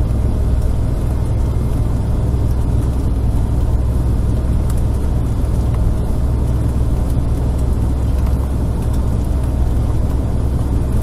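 Motorhome driving along a highway, heard from inside the cab: a steady low rumble of engine and road noise.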